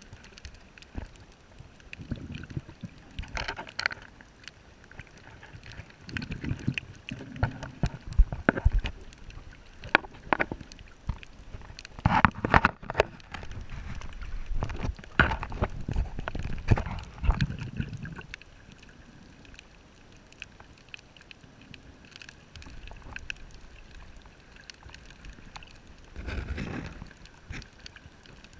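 Underwater camera sounds: irregular clicks and knocks of hands and gear against the housing, with swells of low rumbling water noise every few seconds.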